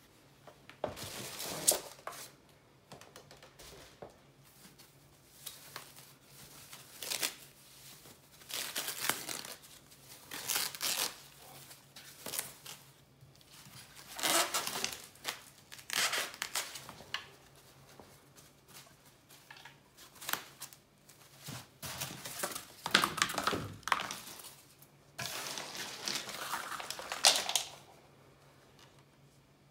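Packing material being handled: plastic and foam wrapping crinkling and rustling in irregular bursts, with styrofoam rubbing, as the statue's base is unwrapped and lifted out of its styrofoam tray.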